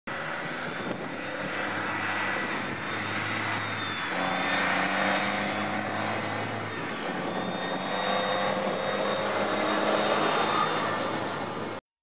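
JCB Fastrac 3200 tractor's diesel engine running under load as it approaches, pulling a grain trailer across stubble; the engine note steps up about four seconds in. The sound cuts off abruptly near the end.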